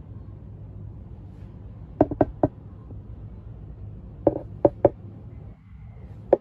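Sharp knocks over a low steady hum: three quick knocks about two seconds in, three more a little after four seconds, and a single one near the end.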